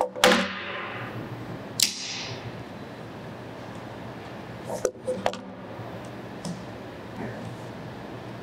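Ski bindings and the ski knocking and clacking as they are handled on a wooden table: two loud knocks with a brief ring in the first two seconds, then a pair of quick clicks about five seconds in, over a steady room hum.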